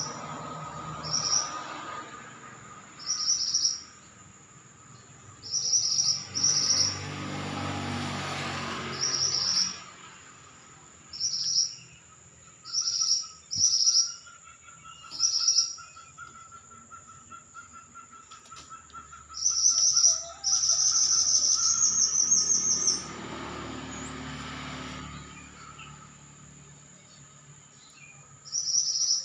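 A mantenan bird singing in short, high chirps repeated every second or two, with a longer fast trill about two-thirds of the way through. A thin steady high tone, like an insect, runs underneath.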